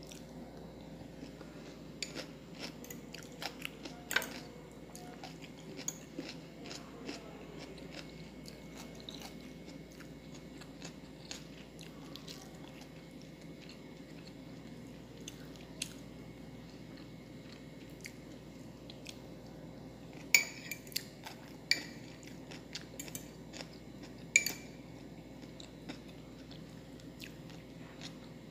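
Close-up eating sounds: chewing, with a metal fork clinking sharply against a glass bowl now and then. The clinks come in two clusters, the loudest about twenty seconds in.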